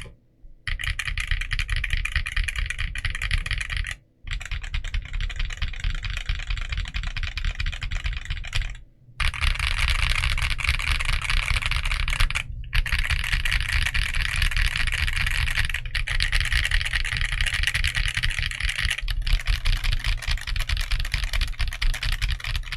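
Continuous fast typing on an Akko MOD008 mechanical keyboard fitted with Akko Creamy Purple Pro tactile switches, which have a heavy bump and short travel. The clatter of keystrokes breaks off briefly a few times.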